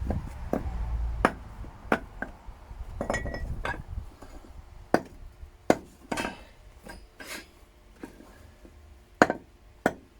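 Sharp metallic clinks and knocks at irregular intervals, from cast copper ingots and coins being handled against their metal moulds. A low rumble runs under the first few seconds.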